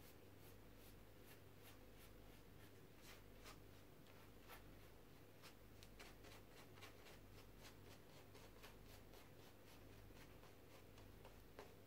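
Near silence: faint, irregular ticks and scratches of a brush working on a paper sheet, over a steady low electrical hum.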